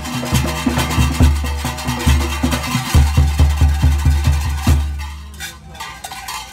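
Junkanoo music: deep drum beats in a fast, driving rhythm under a dense layer of higher percussion, stopping abruptly about three-quarters of the way through.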